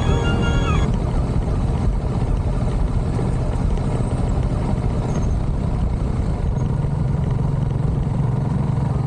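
Motorcycle ride recorded on an action camera: heavy wind noise on the microphone over a running engine, with a steady engine note coming up in the last couple of seconds.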